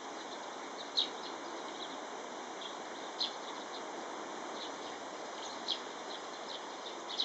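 Small birds chirping, short high calls every second or two over a steady background hiss.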